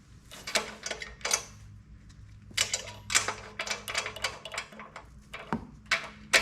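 Irregular metallic clicks and clinks of hand tools and small engine parts being handled, in a few clusters with a sharper clink near the end, over a faint steady low hum.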